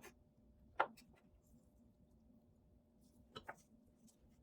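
A few faint knife taps on a cutting board as an avocado is sliced thin: one about a second in, then two quick ones close together near the end.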